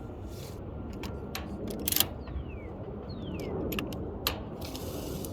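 Hands handling the tie-down's hardware: a run of sharp clicks and knocks, the loudest about two seconds in, two short falling squeaks, and a brief rustle near the end, over steady background noise.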